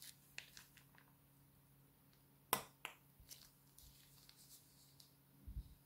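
Faint clicks and crackles of a plastic piping bag being squeezed and crumpled as slime is piped out of it, with one sharper click about two and a half seconds in and a dull low bump near the end.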